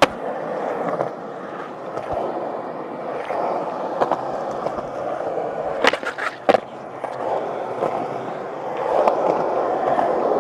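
Skateboard wheels rolling over rough old tennis-court ground in a steady rumble. Sharp board clacks come at the start and a few seconds in, then a cluster around six seconds in as the skater gets onto a low rail and slides or grinds it. The rolling grows louder near the end.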